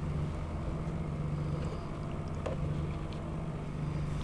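A boat motor running with a steady low hum, with a light knock about two and a half seconds in.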